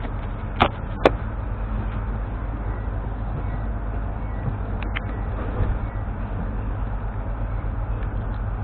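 Footsteps of a passer-by walking close past: two sharp steps about half a second and a second in, then a couple of faint ones around five seconds, over a steady low background rumble.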